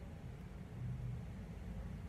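Room tone: a low, steady rumble with a faint hum that fades in and out, and no distinct event.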